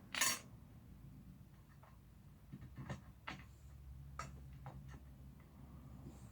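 Chair parts and metal hardware being handled during assembly: one sharp click about a quarter second in, then a few fainter clicks and taps a few seconds later, over a low steady hum.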